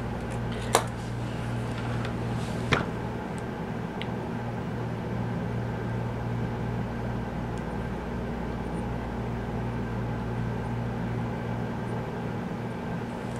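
A steady low mechanical hum, with two sharp clicks about one and three seconds in.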